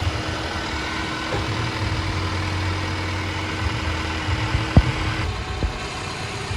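Nissan Rogue Sport's engine idling steadily while the freshly filled CVT warms toward the 35-degree fluid-level check temperature. Two short sharp clicks come near the end.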